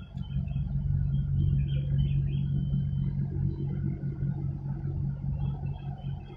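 Low engine rumble with a steady hum, swelling just after the start and easing off near the end.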